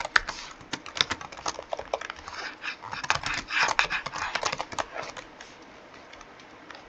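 Computer keyboard typing: a quick, irregular run of keystrokes that thins out and goes quiet about five seconds in.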